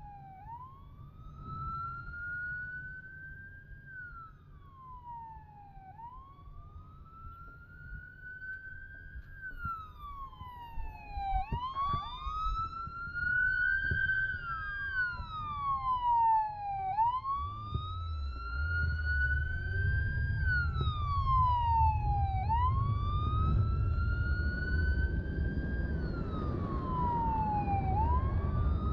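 Police motorcycle siren wailing, slowly rising then falling in pitch about every five and a half seconds, with a second siren overlapping slightly out of step for a while. Low engine and wind rumble grows louder in the second half as the motorcycle rides on.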